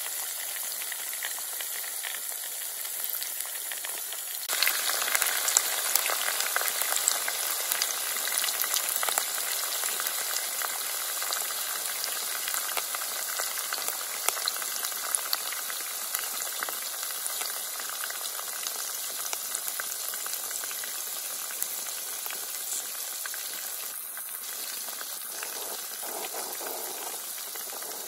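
Flour-coated chicken pieces deep-frying in hot oil: a steady crackling sizzle. It gets suddenly louder about four seconds in, then slowly eases.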